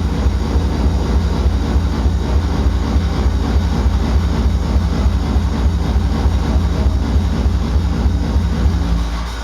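Loud hard-dance music from a club sound system: a fast, heavy kick drum dominating the bass under dense synths. The music drops away near the end.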